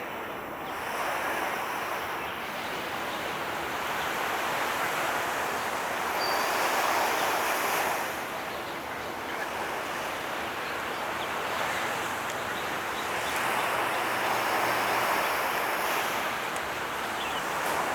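Waves washing against the shore in a steady hiss that swells twice and falls back.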